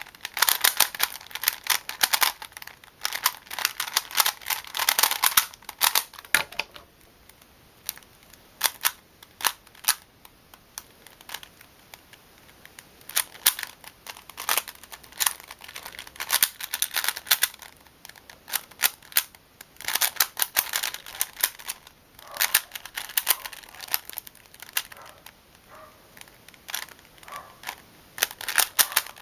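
Plastic speed cubes being turned fast by hand: dense runs of rapid clicking and clacking as the layers snap round. After about six seconds comes a quieter stretch of scattered single clicks lasting several seconds, and the fast clacking then returns.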